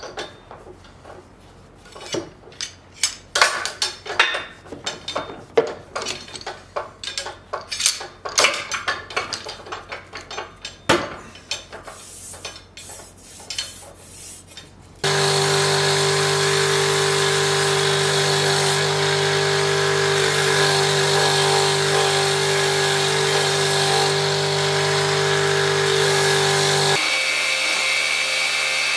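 Irregular scraping strokes of hand work on a steel sword blade clamped to a wooden beam. About halfway in, this gives way to a belt grinder running steadily with a low hum and a higher whine, whose tone shifts near the end.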